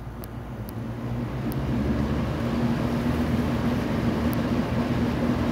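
Lakewood K-222 box fan running on its high speed, getting louder over the first couple of seconds as it comes up to speed, then running steadily with a low motor hum under the rush of air.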